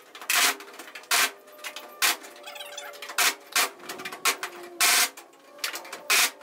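Pneumatic air chisel hammering in short bursts, about ten in six seconds, as it cuts away rusted sheet-steel cowl panel.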